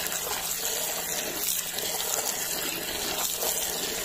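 A stream of water pouring steadily into a metal bowl of fresh dates, with a hand swishing and rubbing the dates as they are washed.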